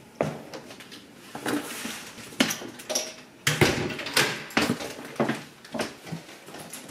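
Apartment front door and a cardboard delivery box being handled: a string of irregular knocks, clicks and thuds.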